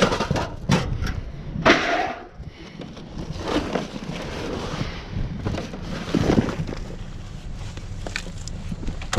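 Cardboard and construction debris being shifted and pulled out of a dumpster: rustling and scraping with a few knocks, the sharpest near the end.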